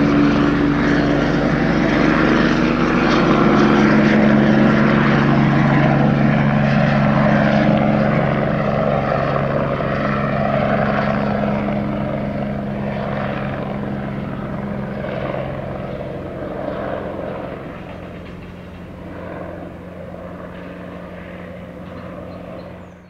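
US Army Eurocopter UH-72A Lakota helicopter, with twin turboshaft engines, flying away. Its rotor and turbine sound holds steady, then fades gradually over the last two thirds and cuts off abruptly at the end.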